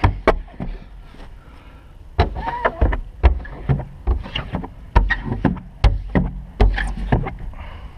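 White Max tint squeegee being worked over the wet rear window glass: irregular knocks and clicks with short squeaks as the blade drags on the glass.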